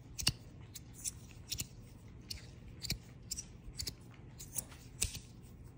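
Metal Lowrey magnetic fidget slider being slid back and forth, its plates clicking as the magnets snap them into place: an irregular run of sharp clicks, about two to three a second.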